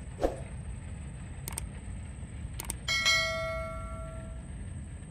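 Subscribe-button overlay sound effect: two mouse clicks about a second apart, then a bell chime that rings out and fades over about a second and a half, over a low steady background rumble.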